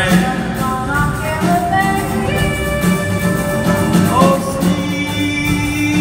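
Live jazz combo playing, with upright bass and drum kit under a melody line that slides between held notes.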